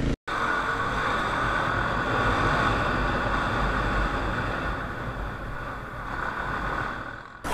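Riding sound picked up by a helmet camera on a Kawasaki KLX 250 single-cylinder dual-sport motorcycle: steady engine and wind noise while under way, easing off a little near the end.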